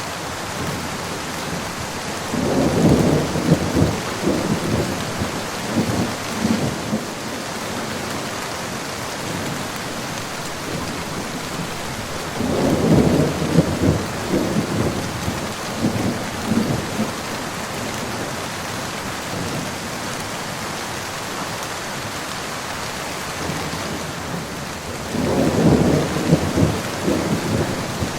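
Steady rain falling, with three rolls of thunder, each rumbling for about four to five seconds: one a couple of seconds in, one about halfway through, and one near the end.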